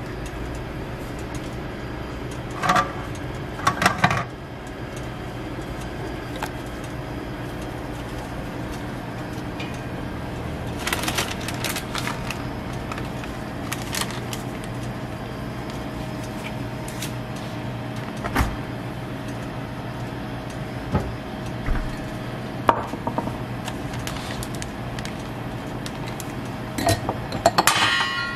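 Scattered clinks and knocks of metal utensils and a metal serving tray being handled, over a steady background hum, with a quick cluster of clatter near the end.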